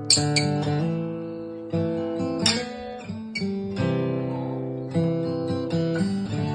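Background music: acoustic guitar playing sustained chords with plucked and strummed notes.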